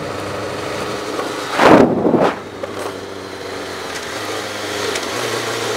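Kawasaki ZX-600 sport bike's inline-four engine running steadily under way, with wind and road noise, heard from the bike; a brief loud rush of noise comes about two seconds in, and the engine note steps up slightly near the end.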